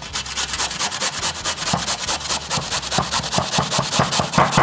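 Raw potato being grated on the fine side of a stainless steel box grater into a metal bowl: a run of quick, even scraping strokes.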